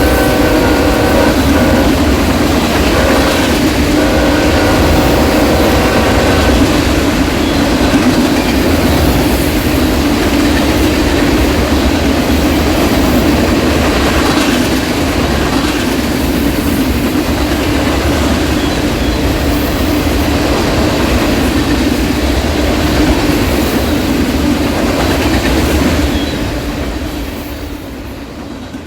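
CSX freight train of grain and coal cars behind GE diesel locomotives: a multi-note locomotive horn sounds at the start and again in a longer blast a few seconds in, over the loud, steady rumble and clatter of the cars rolling past. The rumble falls away near the end.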